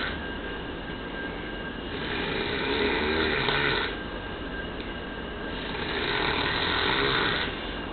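Man snoring in a deep sleep after heavy drinking: two long snores, each about two seconds, coming roughly four seconds apart.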